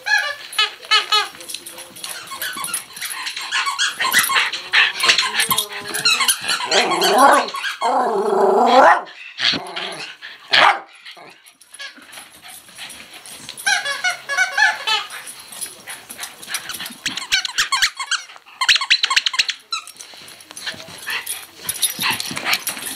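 Small dogs playing with a rubber squeak toy: repeated bursts of rapid squeaking, mixed with barking and growling.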